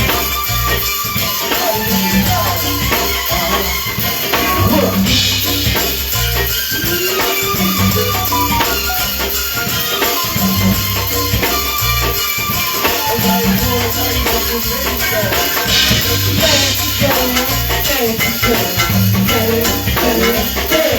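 Live band playing an instrumental passage, with a steady beat and a repeating bass line.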